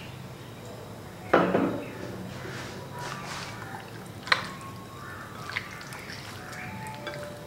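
Bare hands mixing raw chicken breasts in an oily, peppered marinade in a ceramic bowl: wet squelching and slapping of the meat. The loudest squelch comes about a second in, with sharper wet clicks around four and five and a half seconds.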